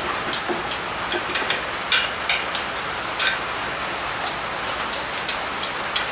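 Irregular sharp metallic clicks of a torque wrench and socket as nuts on a Volkswagen engine case are tightened, over a steady background hiss.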